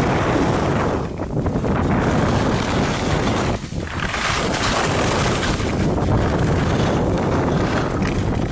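Wind rushing over the microphone of a camera carried by a skier moving downhill, mixed with the hiss of skis sliding on packed snow; it dips briefly about a second in and again near the middle.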